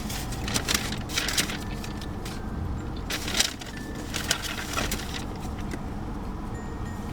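Takeout food packaging crinkling and rustling in about seven short bursts, over a steady low background rumble.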